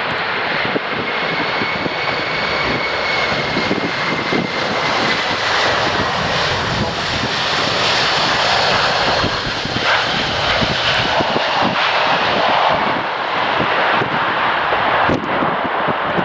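Four turbofan engines of a USAF C-17 Globemaster III running loud and steady. A high whine in the jet noise glides slowly down in pitch.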